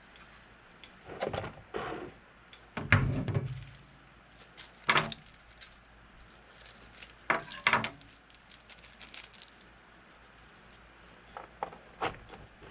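Scattered sharp clicks and clacks of small parts and a hand tool being handled while plastic rivets are fitted to a plastic airbox cover. There are about seven of them, and the loudest is a knock about three seconds in.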